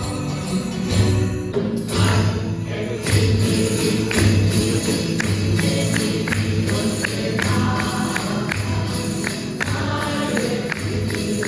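Campanilleros group playing Andalusian Christmas music: jingling bells and tambourine over a steady low beat, with voices singing.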